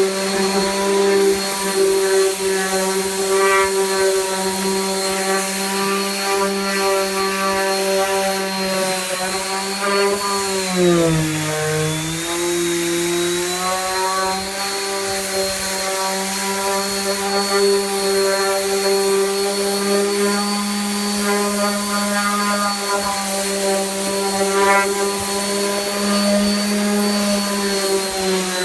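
Variable-speed electric sander running continuously, sanding the bottom of a surfboard. Its motor note is steady, then dips briefly in pitch about eleven seconds in and picks back up.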